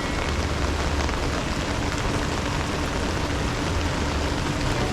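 Heavy rain falling steadily on a riverboat and the water around it, over a steady low rumble.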